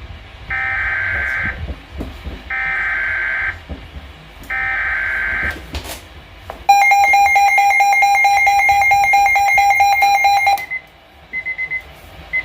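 Weather radio emergency alert: three SAME header data bursts, about a second each and a second apart, then a steady alert tone for about four seconds that cuts off. Short faint beeps follow about once a second. The header and tone open a new severe thunderstorm warning broadcast.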